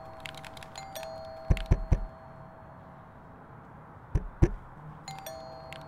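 Knocking on a front door: three quick knocks, then two more a couple of seconds later.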